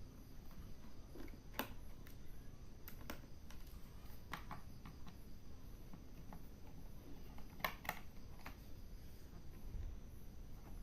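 Scattered small clicks and taps of a small screwdriver working the screws out of a laptop's plastic bottom case, with a quick double click about eight seconds in.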